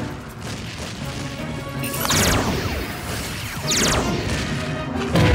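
Cartoon sound effects over background music: two falling laser-like zaps from a magic ray gun, about a second and a half apart, then a loud thump near the end.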